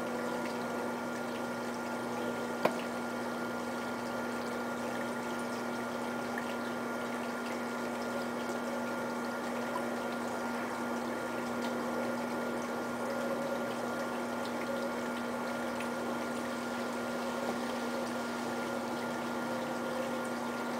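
A steady hum at a fixed pitch over a constant hiss, with a single sharp click about two and a half seconds in.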